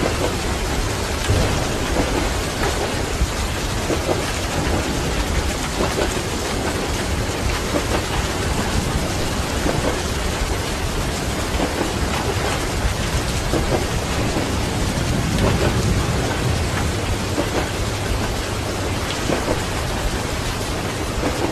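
Steady rain with a continuous low rumble of thunder that swells a little past the middle.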